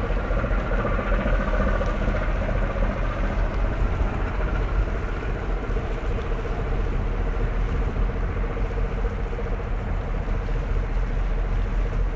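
A boat's engine running steadily: a low rumble with a faint hum, its higher tones fading about two seconds in.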